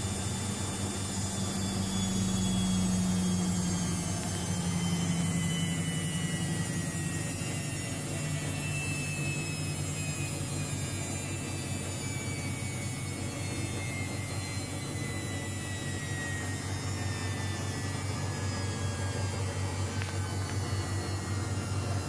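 Luxor WM 1042 front-loading washing machine spinning an unbalanced load on its 800 rpm spin cycle: a steady low hum with a faint motor whine that slowly falls in pitch.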